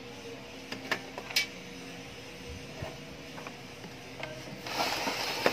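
RCA cable plug being pushed onto an amplifier's rear input jack: a few sharp clicks and rubbing about a second in, then scattered small ticks. Near the end a louder steady rushing noise comes in.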